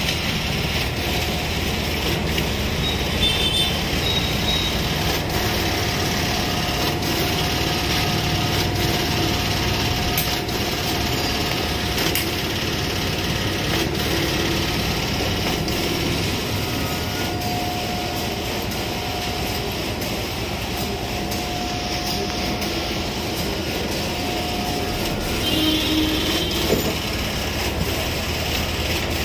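Ricoh C751 colour production printer running steadily with a faint hum, printing sheets out into its output tray.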